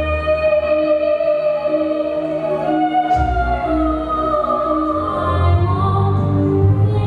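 A woman singing into a microphone with instrumental accompaniment, holding long notes.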